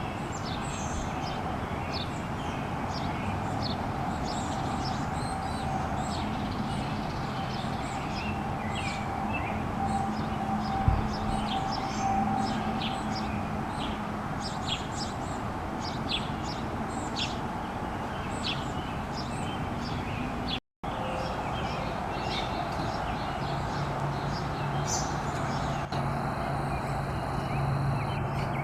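Small songbirds chirping: many short, high chirps scattered throughout over a steady low hum and background hiss. There is one sharp thump about eleven seconds in, and a momentary dropout about two-thirds of the way through.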